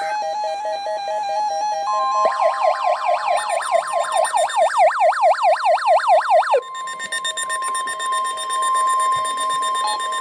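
NOAA Weather Radio 1050 Hz alert tone for a tornado warning test: a single steady tone that starts about two seconds in, after a short stretch of music. Over its first few seconds a loud siren-like warble also sounds, sweeping up and down about three times a second, and it cuts off about six and a half seconds in.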